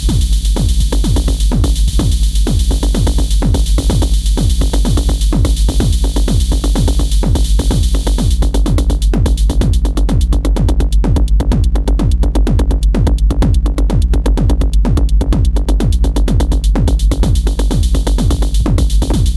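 Electronic dance music with a steady fast beat and heavy bass. For a stretch in the middle, a rapid fluttering high-pitched pattern runs over the beat.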